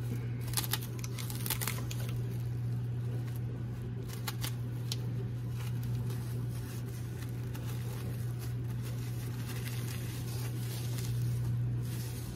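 Plastic cling wrap crinkling in short, scattered crackles as it is pulled and wrapped around a ball of dough, over a steady low hum.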